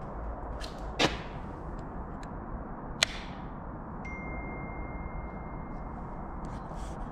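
Steady room noise with two sharp clicks, about one and three seconds in, then a single steady high-pitched electronic beep that starts about four seconds in and holds for about three seconds.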